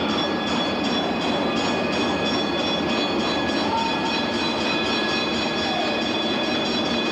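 Steady rushing hiss with a constant high-pitched whine, the sports-hall background on an old camcorder soundtrack; no distinct event stands out.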